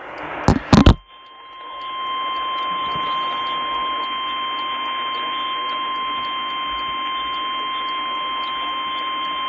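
NOAA Weather Radio 1050 Hz warning alarm tone: a steady tone that swells in over about a second and then holds for about eight seconds over radio static hiss. Two sharp pops come just before it, about half a second in. The tone signals that a warning message follows, here a severe thunderstorm warning.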